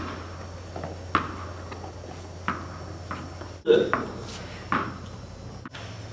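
Tennis ball bouncing on hard floor and stair treads: single knocks about a second apart, each with a short echo, over a steady low hum that stops a little past halfway.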